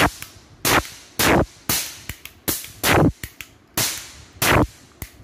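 A toy cap revolver firing caps: about eight sharp, loud cracks, one every half second to one second, each with a short ringing tail, and fainter clicks between them.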